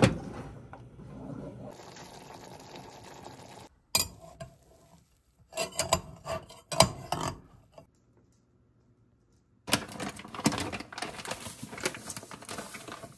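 Kitchen sounds in quick cuts: a wooden spoon stirring in a saucepan with a steady hiss underneath, then a few sharp clinks of a knife against a ceramic baking dish, a short near-silent gap, and a stretch of clattering and scraping at a stainless steel pot.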